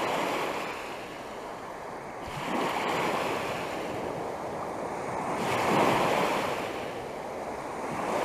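Small Lake Superior waves break and wash up a sandy beach, surging and receding about every three seconds.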